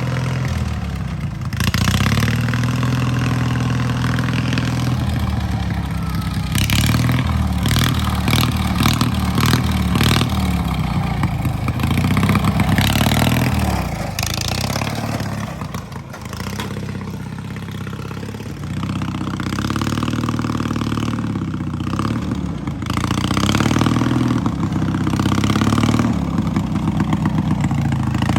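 Riding lawnmower engine revving hard, its pitch rising and falling repeatedly, with some clattering and knocking partway through.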